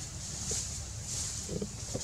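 Outdoor ambience: a steady low wind rumble on the microphone under a high hiss that swells and fades, with a short soft sound about one and a half seconds in.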